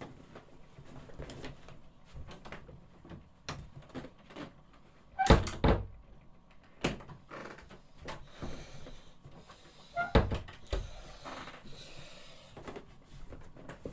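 A door being handled in a small room: a cluster of knocks and bumps about five seconds in and another about ten seconds in, with smaller clicks and faint room noise between.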